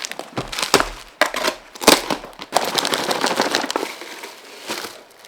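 Parcel packaging crinkling and rustling as it is handled and opened, with a series of sharp snaps and clicks.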